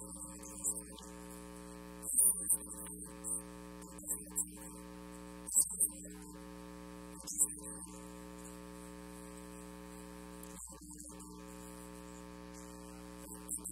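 Steady, buzzy electrical mains hum from the sound system, broken by short hissy crackles every second or so during the first half. The second half is hum alone.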